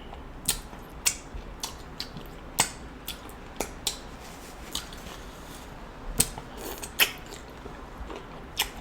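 Close-miked eating of saucy seafood: irregular wet clicks and smacks of chewing and lips, about one or two a second.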